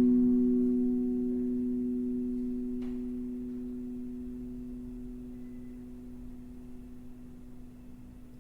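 A single note on a RAV steel tongue drum rings out: one steady low tone with a faint higher overtone, fading slowly.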